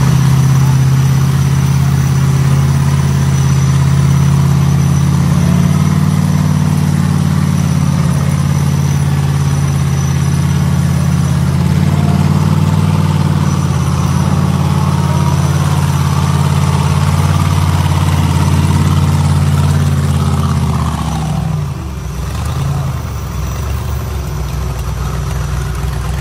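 Off-road 4x4 buggy engine held at steady high revs as the buggy claws up a steep mud slope with its wheels spinning. About 21 s in, the revs drop away and the engine settles lower.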